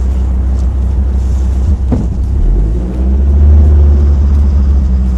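Vehicle driving slowly over rough dirt, heard from inside the cabin: a steady low engine and road rumble with a knock about two seconds in. The engine grows louder and rises slightly in pitch about three seconds in as it works harder.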